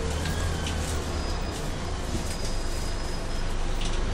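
Interior noise of a moving Scania CN280UB city bus: a steady low engine drone with road noise and a few brief rattles from the cabin fittings.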